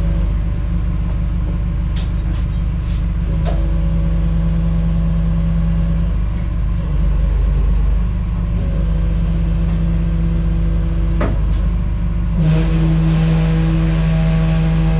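A vehicle engine running steadily, its hum growing louder for a few seconds at a time, about four seconds in and again near the end. A few sharp clicks and knocks sound over it.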